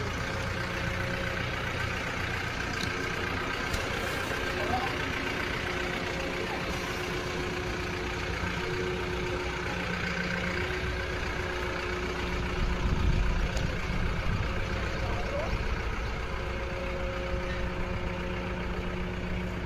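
A crane's heavy engine running steadily, its low rumble growing louder for a few seconds a little past the middle.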